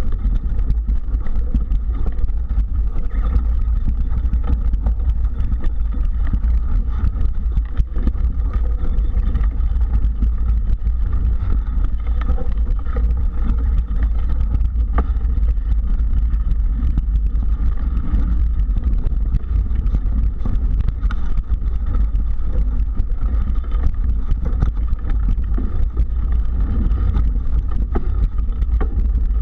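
Mountain bike ridden over a rough dirt singletrack, heard from a camera riding along with it: a constant low wind rumble on the microphone, with frequent rattles and knocks from the bike and tyres over the bumps.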